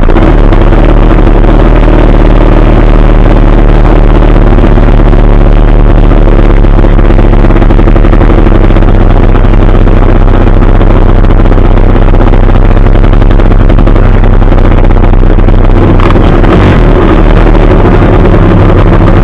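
Dirt bike engines idling steadily and loudly close to the microphone.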